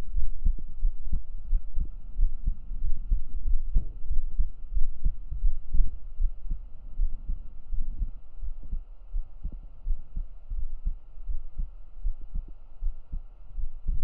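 A real human heartbeat recorded up close with binaural microphones: a steady run of low, dull thumps.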